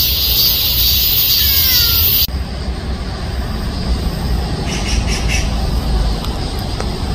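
Outdoor ambience: a steady high-pitched hiss with a bird's short falling call about a second and a half in. After an abrupt cut a couple of seconds in, the hiss drops away, leaving a low rumble and a few brief chirps near the middle.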